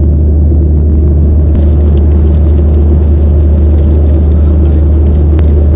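Airliner cabin noise: a loud, steady, deep rumble of engines and airflow heard from inside the passenger cabin.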